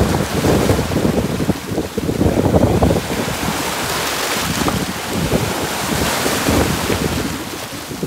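Small waves breaking at the water's edge and washing up over a pebble beach, the foam hissing as it spreads over the stones and swelling in the middle before easing off near the end. Wind buffets the microphone with a low rumble, strongest in the first few seconds.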